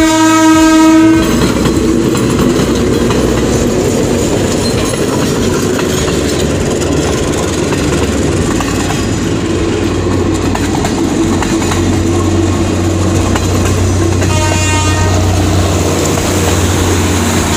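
PNR commuter train passing close by: its horn sounds for about the first second, then the rumble and clatter of the cars on the rails, with the horn coming again more faintly about fifteen seconds in.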